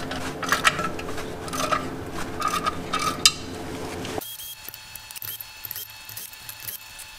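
Ratchet wrench clicking and metal tools clinking on the bolts of a Subaru clutch pressure plate as they are loosened. About four seconds in, the sound cuts off abruptly to a quieter background with a faint high whine.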